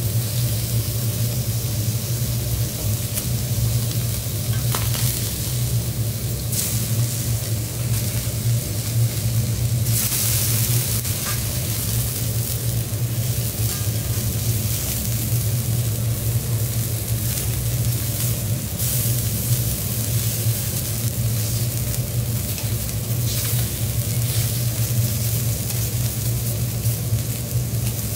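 Shrimp, abalone and scallops sizzling on a hot teppanyaki steel griddle, with light ticks and scrapes of a metal spatula, knife and fork on the plate. The sizzle swells louder about ten seconds in and again just before twenty seconds. A steady low hum runs underneath.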